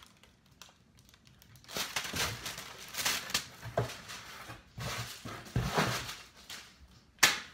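Plastic bubble wrap crinkling and rustling as it is pulled out of a cardboard shipping box, starting after a quiet second and a half, with one sharp snap near the end.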